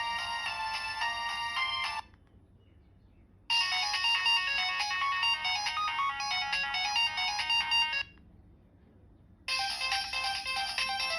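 Mobile phone ringtone playing an electronic melody in repeating phrases, broken by two pauses of about a second and a half, on the restored Nokia 1200.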